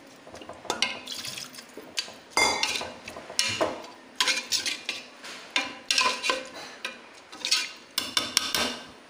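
A metal ladle stirring wet chicken curry in a pressure cooker pot, scraping and clinking against the metal sides about once a second, some strokes ringing briefly.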